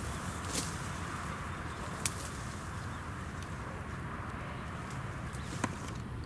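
Steady open-air background noise with a low wind rumble, broken by three brief sharp clicks: one about half a second in, one about two seconds in, and one near the end.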